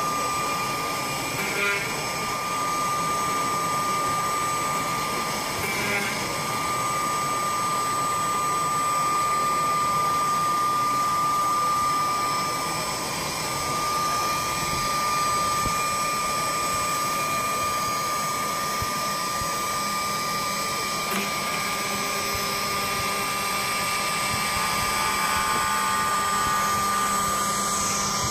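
High-speed CNC router spindle running with a steady high whine while its small end mill cuts a white workpiece, with the hiss of cutting underneath.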